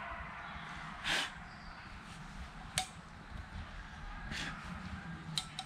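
Small camping kit being handled: a short rustle about a second in, a sharp metallic clink near the middle, another brief rustle, then two quick clicks near the end, over faint low background noise.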